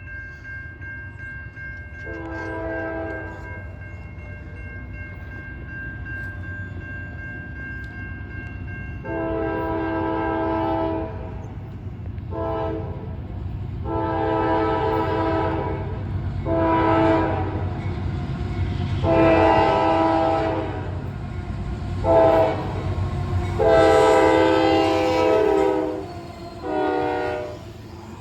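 Horn of an approaching CSX freight locomotive sounding a series of long and short blasts for grade crossings, growing louder as the train nears. Under the horn is a steady, swelling rumble of the train coming on.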